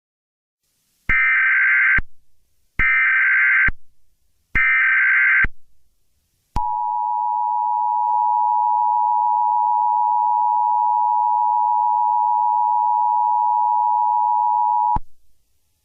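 Emergency Alert System tones announcing a fire warning: three bursts of SAME header data, each just under a second long, then the steady EAS two-tone attention signal, which starts about six and a half seconds in, holds for about eight and a half seconds and stops abruptly.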